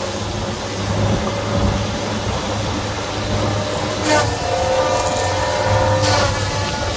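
Heavy tracked machine's diesel engine running steadily, with an intermittent metallic whine and two sharp clanks about four and six seconds in.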